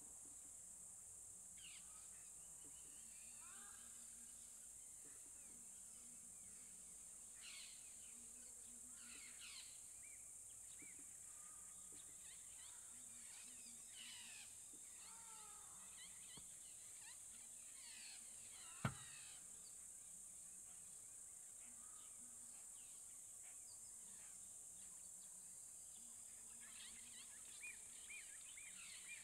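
Faint wild bush ambience: a steady high-pitched hiss with scattered bird chirps and calls, and a run of quick repeated chirps near the end. One sharp snap or click about 19 seconds in is the loudest sound.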